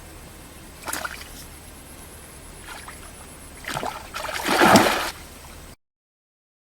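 Water splashing: a short splash about a second in, then a longer, louder bout of splashing around four to five seconds in.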